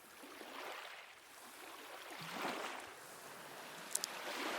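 Ocean waves washing in, swelling and falling away about every two seconds, with two faint clicks near the end.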